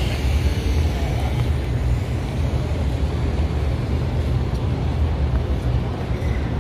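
Steady low rumble of open-air background noise, even throughout with no distinct events.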